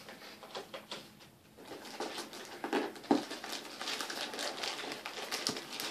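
Plastic wrap on a shoebox being torn open and crinkled by hand: irregular rustling and crackling with scattered clicks, and one sharper snap about three seconds in.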